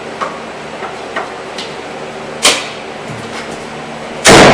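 1998 Honda Civic hood dropped shut, one loud bang near the end as the freshly refitted latch catches and holds it fully closed. A few light clicks and a sharper knock about halfway through come before it.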